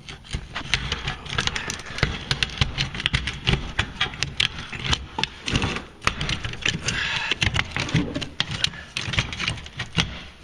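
Metal garage door hardware clanking, clicking and rattling as it is worked by hand, with many short knocks and some scraping.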